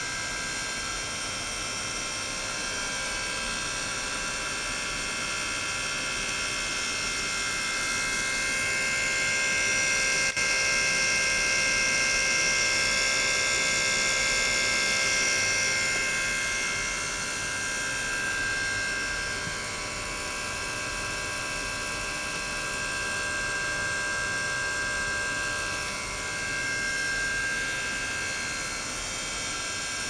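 Flow-through ultrasonic system running: the ultrasonic transducer drives the water-filled bottle and tank while water circulates through the tubing. It makes a steady high-pitched buzzing hum of several tones, which swells louder about a third of the way in and then settles back.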